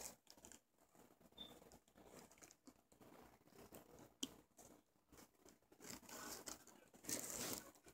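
Faint rustling and handling noise of fabric and plastic dolls being moved about close to the microphone, with a sharp click about four seconds in and a louder rustle near the end.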